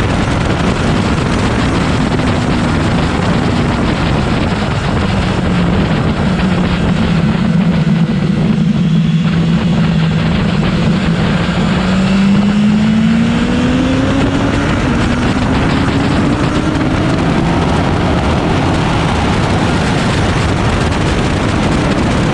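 BMW S1000XR's inline-four engine running hard at speed, under heavy wind and road noise on the microphone. The engine note holds steady for several seconds, then climbs steadily in pitch past the middle as the bike accelerates.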